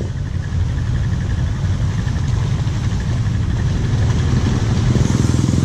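ATV engines running: a four-wheeler drives slowly through flood water toward the listener while a nearby ATV idles. The result is a steady low engine hum that grows slightly louder near the end.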